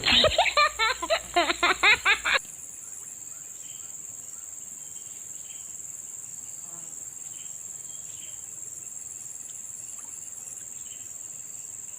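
Steady, high-pitched chorus of crickets and other insects. For the first couple of seconds a louder burst of rapid, pitched pulses sounds over it, then cuts off abruptly.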